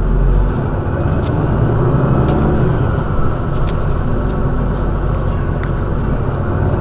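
Mercedes-Benz Citaro city bus's rear-mounted engine idling steadily while the bus stands at a stop, a loud, even low hum.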